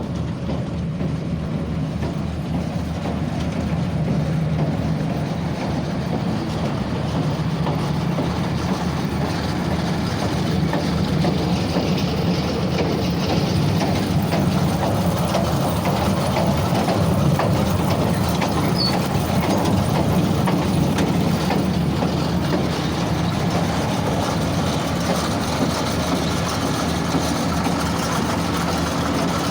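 Case 8590 baler running steadily with its tractor's engine, a continuous low hum under a clattering mechanical rush that grows slightly louder a few seconds in.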